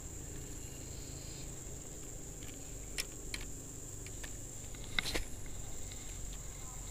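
Steady high-pitched drone of insects, with a few sharp clicks from a Shimano Sienna 1000 FG spinning reel being handled and cranked, a little after three seconds in and again, louder, about five seconds in.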